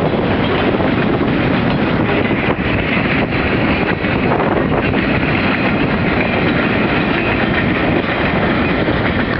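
Freight train rolling past, its wheels running on the rails in a loud, steady, continuous noise.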